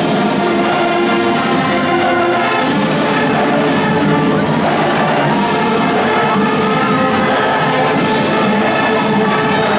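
High school marching band playing: brass instruments hold sustained chords over regular percussion hits.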